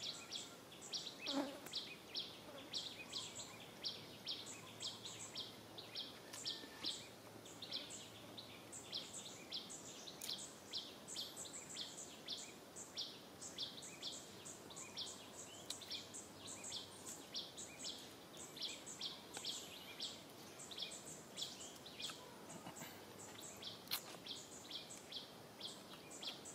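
Insects chirping: a steady train of short high-pitched chirps, about three a second.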